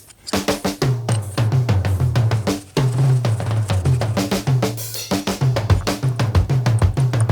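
Background music with a drum kit keeping a steady beat over a bass line.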